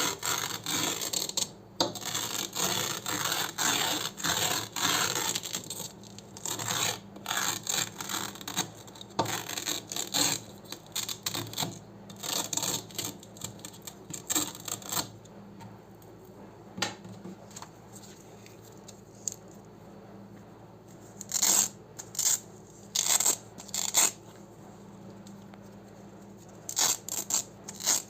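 Velcro hook-and-loop being pulled apart and rubbed: a dense run of crackly tearing for about the first half, then quieter, with a few short, sharp rips near the end.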